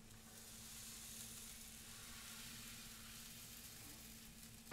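Faint, steady sizzle of thin crepe batter cooking on the hot non-stick plate of a 13-inch electric crepe maker as it is spread out.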